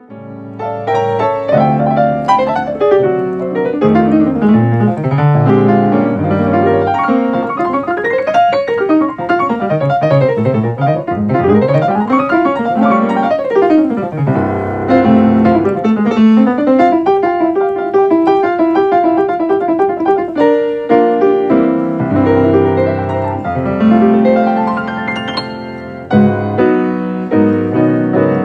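Solo piano played with both hands: chords and fast arpeggio runs sweeping up and down the keyboard, with a brief break about twenty seconds in and another a few seconds later.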